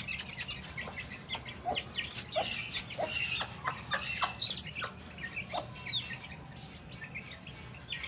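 A mother hen clucking in short, low notes while her chicks peep in quick, high chirps.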